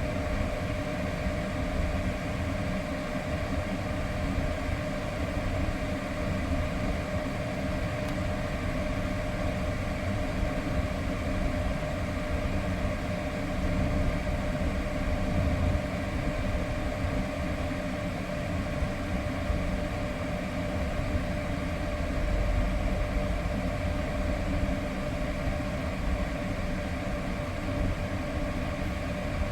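Renault Samsung SM3 idling with the air conditioning running, a steady hum and low rumble with a constant whine over it.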